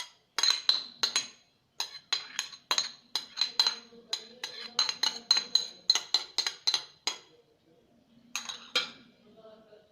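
Metal spoon clinking against a bowl as spoonfuls of grated ginger are scooped and tapped in, with quick ringing strikes about three a second for roughly seven seconds, then two more a little later.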